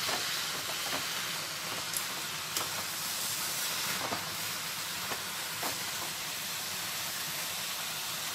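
Wet drumstick (moringa) leaves with a little added water steaming and sizzling in a hot pan, a steady hiss with a few light clicks.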